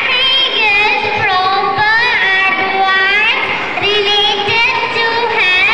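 A young girl singing a melody into a microphone, holding long notes.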